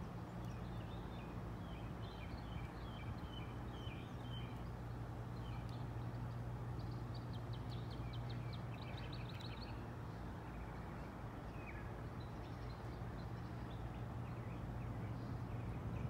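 Songbirds chirping and calling, with a rapid trill of evenly spaced notes from about seven to ten seconds in, over a steady low hum.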